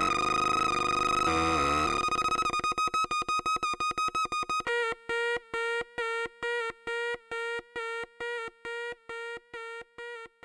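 Teisco 110-F analog synthesizer sounding a steady, buzzy pitched tone that breaks into fast chopped pulses about two seconds in. The pulses slow down and fade, stepping down to a lower note near the middle and ending at about two pulses a second.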